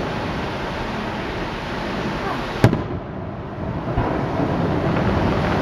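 Aerial firework shells bursting: one sharp bang about two and a half seconds in and a lighter thump about a second later, over a steady noisy rumble from the ongoing display.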